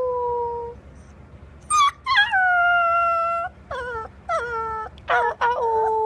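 Golden retriever puppy howling: a run of high calls that each slide down in pitch and level off. The longest is held about a second and a half, with shorter yips between.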